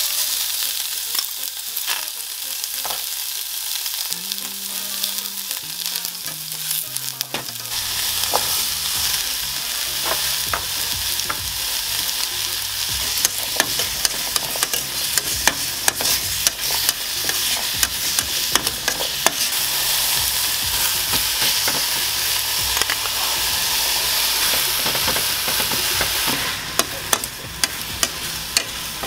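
Pork neck frying in oil in a thin metal pot, sizzling steadily while it is stirred with tongs, with frequent clicks of the tongs against the pot. Near the end the sizzle drops a little and the clicks stand out more.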